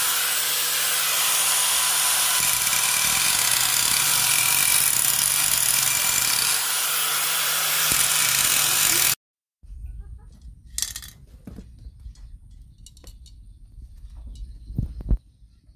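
Electric angle grinder running steadily against the metal of a spoked motorcycle wheel, a loud grinding noise with a whine in it. About nine seconds in it cuts off abruptly, leaving only faint scattered clicks and knocks.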